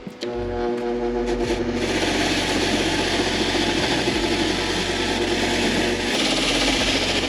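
Continuous rasping and rubbing of a tool working a part. It starts about a quarter second in and turns brighter and harsher after about two seconds.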